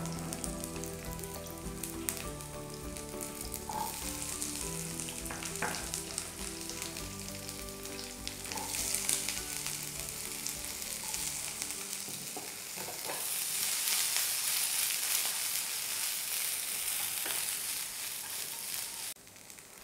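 Onion, capsicum and sweet corn sizzling in oil in a nonstick frying pan, the sizzle growing louder about two-thirds through and cutting off shortly before the end. Soft background music plays under the first half.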